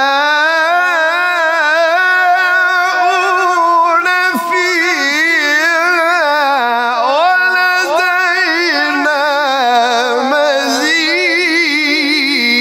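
A man reciting the Quran in melodic maqam style, singing long drawn-out melismatic phrases high in his range with fast wavering ornaments, briefly dipping lower about seven seconds in before climbing again.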